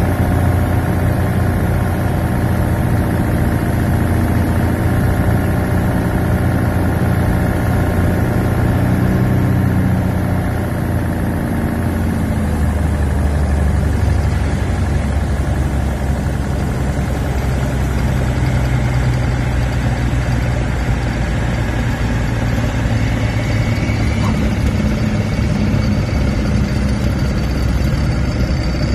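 SMA diesel engine and propeller of a Cessna 182, heard from inside the cockpit, running steadily at reduced power through the final approach, touchdown and landing roll. Its low note changes about twelve seconds in.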